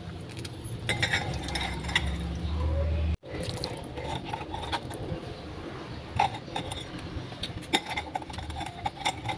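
Light metallic clinks and rattles of a wire fish-grilling rack being handled and closed over a whole fish on a plate, with a brief dropout in the sound about three seconds in.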